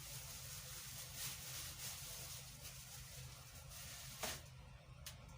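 Faint, soft swishing strokes of a liquid conditioner mixture being stirred by hand, over a low steady hum, with a single knock a little past four seconds in.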